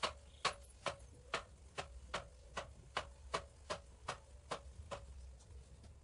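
Hand-cranked manual pipe roller clicking in a steady rhythm, about two and a half clicks a second, as its crank is turned to roll a galvanized steel tube into a curve. The clicking fades out about five seconds in.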